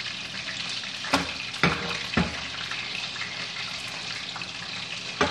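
Egg omelette sizzling in an oil-free non-stick frying pan, with three sharp knocks between one and two seconds in, and another near the end, as the omelette is loosened and turned in the pan.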